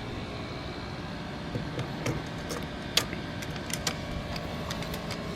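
A steady low hum with scattered small clicks and taps, one sharper click about three seconds in, as a table is handled and measured.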